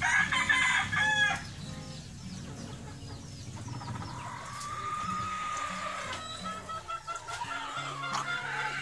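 Roosters calling: a loud, harsh, broken burst of calls in the first second and a half, then a long drawn-out crow that starts about four seconds in, rises and holds.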